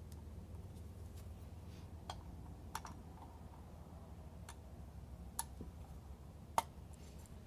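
Scattered light clicks and taps of small door-handle lock parts being handled and fitted together, the sharpest click near the end, over a steady low hum.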